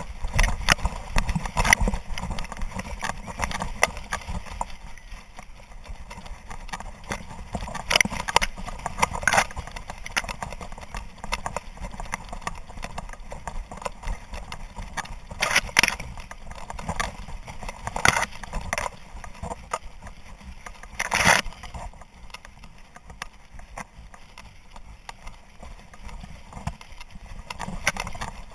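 A hunting dog pushing through tall dry grass, heard from a camera on its back: dry stalks rustling and scraping against it and its footfalls in an uneven rhythm, with a handful of louder sharp brushes and knocks along the way.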